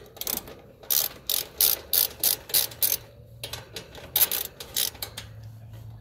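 Hand socket ratchet being worked in short strokes on a fastener in a heat pump's control panel, its pawl clicking about three times a second with a brief pause partway through.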